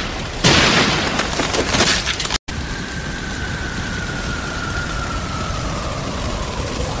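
Anime battle sound effects: loud crashing impacts and rumble as a body-slam hits the ground. After an abrupt cut about two and a half seconds in, a steady rushing noise follows, with a faint high tone slowly falling.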